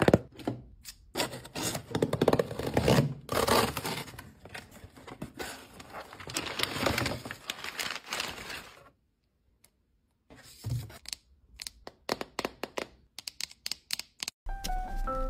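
A cardboard shipping box is opened and brown kraft packing paper is crumpled, rustled and pulled out. After a short pause comes a run of quick, light clicks of long acrylic nails tapping a plastic toy capsule.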